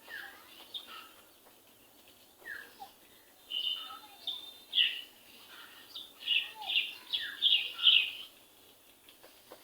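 Birds chirping and calling in short, mostly falling notes, with a quicker, louder run of chirps about six to eight seconds in.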